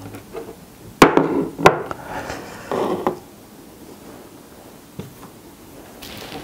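Two sharp knocks of a wooden spoon against a ceramic bowl about a second in, with close-miked eating sounds of rice and spicy broth being scooped and chewed.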